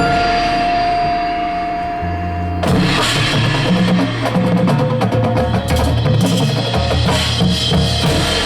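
High school drumline with its front ensemble playing a contest show. A single held note sounds over a low bass line for the first two and a half seconds, then the snares, bass drums and mallet percussion come in together and play on.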